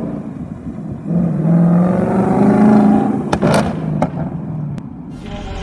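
Ford Mustang Bullitt's 5.0-litre V8 accelerating away, its note rising in pitch and getting louder over a couple of seconds. A few sharp cracks come about three and a half seconds in, and then the sound fades as the car pulls off.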